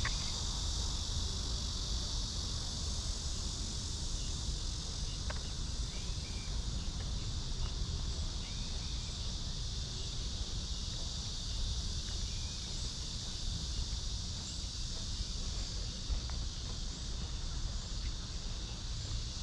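Cicadas buzzing in a steady, unbroken chorus, with a low rumble of wind or walking underneath and a few faint chirps.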